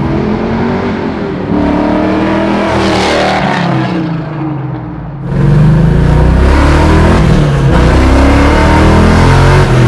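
A 427-cubic-inch stroked LS3 V8 in a 1969 Camaro accelerates past, its pitch rising, then fades as it goes away. About five seconds in, the sound switches abruptly to the same engine heard from inside the cabin: louder, with much more low end, and still pulling.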